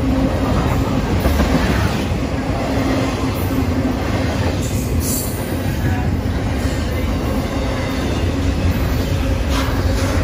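BNSF double-stack intermodal freight train passing close by: a loud, steady rumble and rattle of the container-laden well cars' wheels on the rails, with a couple of short sharp high sounds, about five seconds in and near the end.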